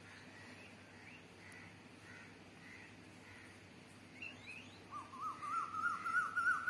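Birds calling: faint chirps repeat throughout, then about five seconds in a louder, fast run of short rising notes, about five a second.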